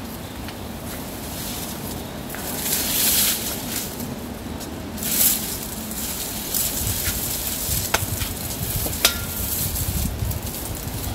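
Dry palm fronds rustling and crackling as they are pulled and knocked down with a long pole, over a steady hiss, with two louder bursts of rustling and a few sharp clicks later on.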